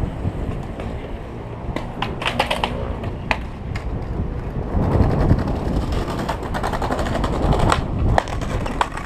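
Skateboard rolling on pavement with a rumble and bursts of sharp clacks, a cluster about two seconds in and another near the end, while wind buffets the microphone.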